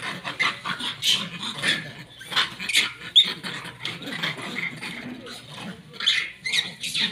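Monkeys calling: many short, shrill squeaks and cries, overlapping and irregular.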